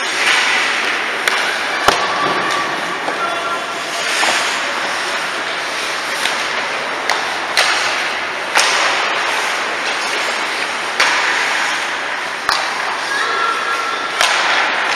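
Ice hockey play: skate blades scraping and carving the ice in repeated hissing bursts, with a dozen or so sharp clacks of sticks and puck scattered through.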